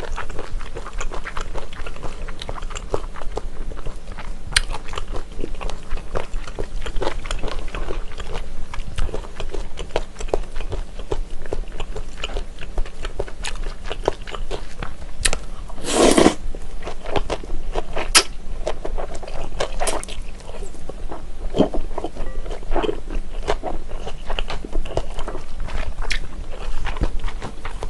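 Close-miked eating of wide Chinese glass noodles in spicy sauce: wet chewing and small mouth clicks throughout, with one louder slurp a little past halfway.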